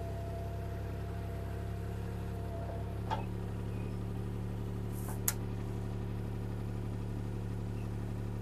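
CAT 303C CR mini excavator's diesel engine running steadily while the boom and bucket move. A faint whine stops about three seconds in, and there are two sharp knocks, about three and five seconds in.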